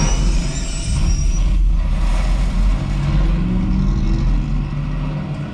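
Action-film car-chase soundtrack played loud through Focal Chora 826-D Dolby Atmos speakers: engines rumbling with deep bass, and rising whooshes in about the first second.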